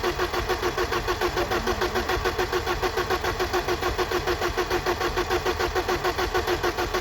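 1995 BMW E34's engine being cranked by the starter motor without catching: an even, rhythmic churning of about seven pulses a second that never picks up speed, then cuts off suddenly at the end. This is the car's fault of cranking endlessly but not starting.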